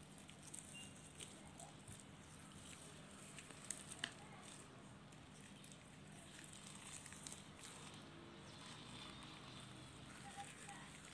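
Faint crackling and popping of liquid slime loaded with foam beads and sequins as it is stretched and pressed by gloved hands, with a couple of sharper clicks about four seconds in.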